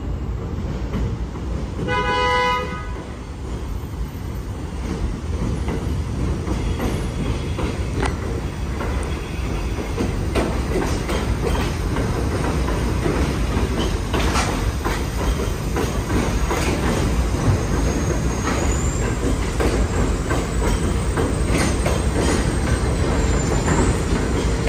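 New York City Subway 1 train of R62A cars pulling into an elevated station: one short horn toot about two seconds in, then the steady rumble of the cars rolling past with clicks over the rail joints. A thin, high wheel squeal comes in during the last several seconds.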